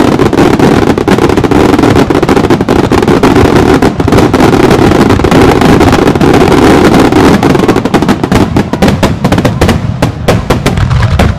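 Japanese starmine fireworks barrage: loud, dense, overlapping launches and bursts in rapid succession, thinning slightly near the end.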